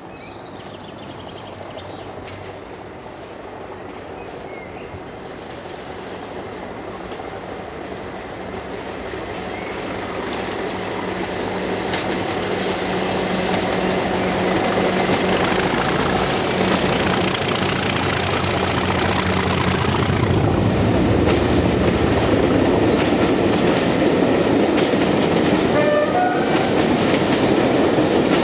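Preserved diesel locomotive approaching with its engine running, growing steadily louder, then a train passing close with a fast run of wheel clicks on the rails.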